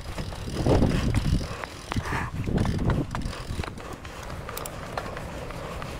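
Mountain bike rolling along a stone-paved path, with tyre rumble and small clicks and rattles from the bike; it is louder in the first half and quieter from about halfway.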